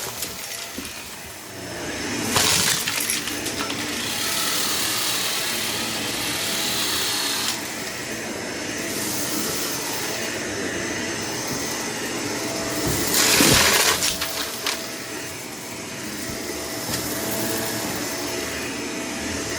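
Vacuum cleaner running and sucking up dry debris, which rattles and crackles through it. There are louder surges about two seconds in and again around thirteen seconds.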